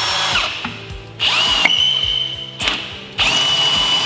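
Handheld power drill boring a hole through the Jeep JK's rear quarter-panel sheet metal, run in three bursts. Each burst is a steady high whine that spins up and winds down.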